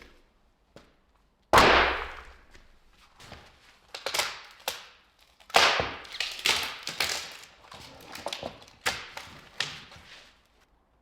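A series of irregular knocks and thuds, about a dozen, the loudest about a second and a half in, each dying away quickly.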